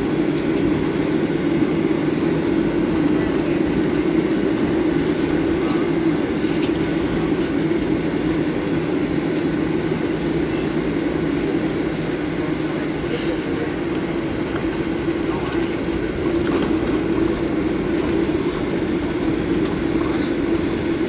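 Steady, low cabin rumble inside a Boeing 737-800 as it taxis, with the engines running at taxi power and the airframe rolling along the taxiway.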